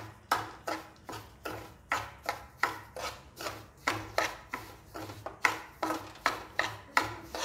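Steel spoon stirring semolina in hot ghee in a nonstick kadhai, scraping across the pan in quick repeated strokes, about two to three a second: the semolina being roasted in the ghee.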